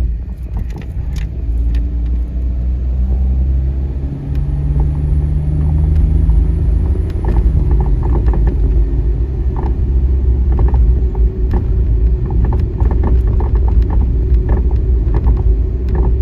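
Suzuki Every DA64 kei van on the move, a steady rumble of engine and road with repeated rattling knocks from the front suspension, which come thicker from about halfway through. The owner puts the rattle down to worn suspension rubber parts: upper mounts, stabilizer bushes and stabilizer links.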